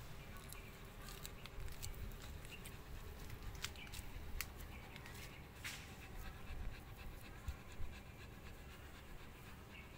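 A mother dog panting softly while her puppy nurses and nuzzles at her, with a few sharp small clicks in the middle.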